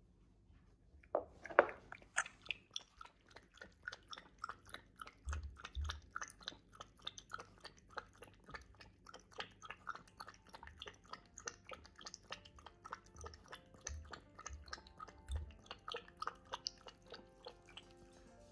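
Maltese puppy lapping water from a bowl: quick, regular wet laps, about three or four a second, starting a second or two in.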